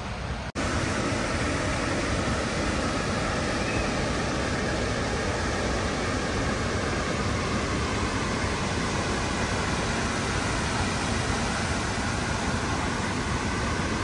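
Steady rushing noise of the Keila-Joa waterfall's falling water, cut off for an instant about half a second in and then continuing slightly louder.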